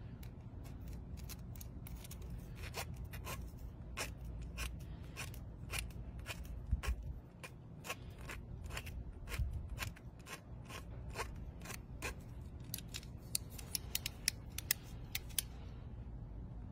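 A long string of short, sharp snips and clicks, about two a second and quickening near the end, from a folding multi-tool's blade cutting and shaping a small plastic tube.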